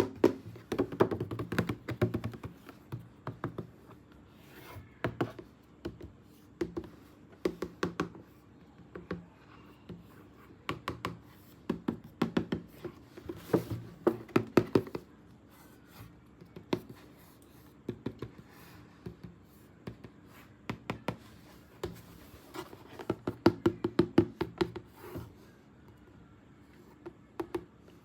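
Hands handling a plastic toy and its packaging: bursts of clicks, taps and light knocks with short quiet gaps between them.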